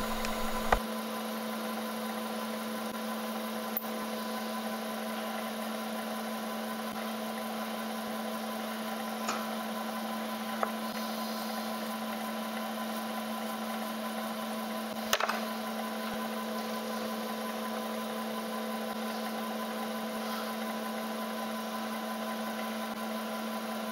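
Milling machine running with a steady hum, spinning a 5 mm carbide end mill, with a few light ticks and one sharper click about fifteen seconds in.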